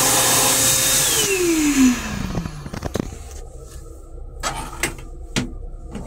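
ThinAir hand dryer blowing with a high motor whine, then shutting off and winding down over about a second and a half, its pitch falling. A few short knocks follow near the end.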